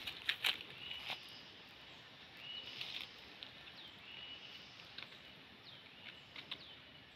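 Forest ambience: birds calling with short, steady, high whistled notes and a few quick descending chirps, over scattered sharp crackles.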